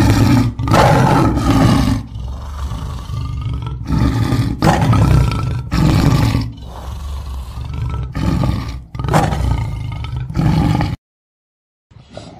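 A big cat growling and roaring, with loud rough bursts about every two seconds and lower growls between; it stops abruptly about a second before the end.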